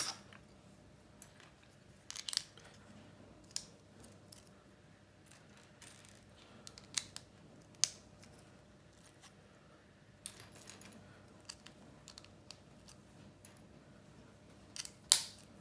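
Plastic Lego bricks clicking as they are handled and pressed together, in scattered sharp clicks with quiet between them; the loudest snap comes near the end.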